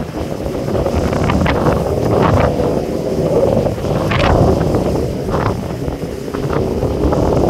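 Wind buffeting the microphone over the steady rush of churning sea water along a moving ship's hull, with short gusts or splashes flaring up every second or so.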